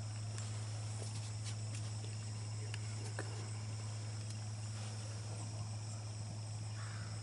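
Steady chorus of insects, with a constant low hum beneath it and a few faint ticks.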